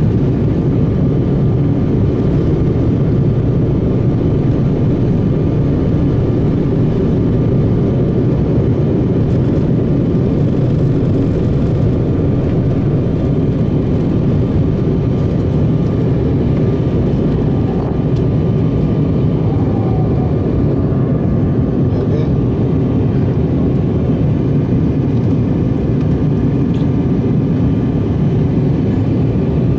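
Airliner cabin noise: the steady, loud rumble of jet engines and airflow heard from a window seat, with a faint steady high whine.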